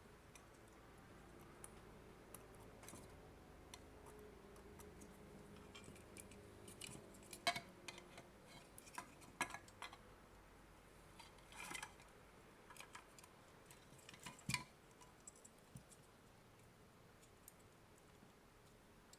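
Faint handling of a dismantled AC adapter and its circuit board: scattered small clicks and taps, with a cluster of louder ones about midway, over a faint low hum in the first half.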